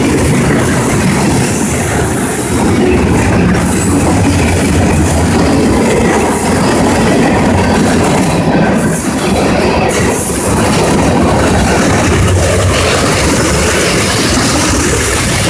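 Freight cars of a passing train rolling by close at a steady loud level: steel wheels running on the rails.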